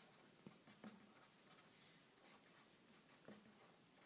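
Felt-tip marker drawing and writing on paper: faint, short scratchy pen strokes.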